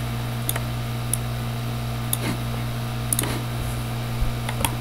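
Steady low electrical hum, with a few light, scattered computer mouse clicks as the model is worked on.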